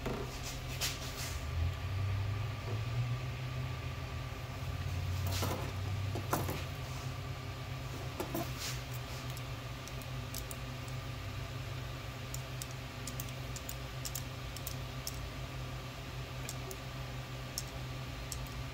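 Scattered clicks and small metallic taps of a steel digital caliper being handled and its jaws slid open against a 3D printer's belt and aluminium frame, with many light ticks in the second half, over a steady low hum.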